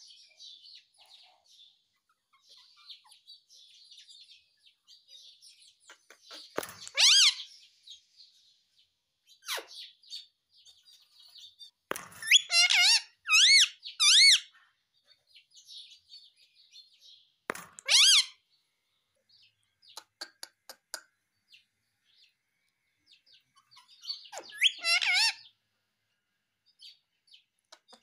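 Indian ringneck parakeet vocalising: soft intermittent chatter broken by several loud, high-pitched calls, three of them in quick succession midway through.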